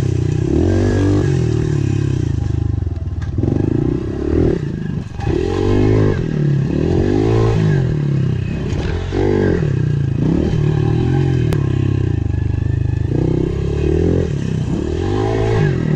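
Pit bike engine being ridden hard, its pitch rising and falling over and over as the throttle is opened and closed every second or two.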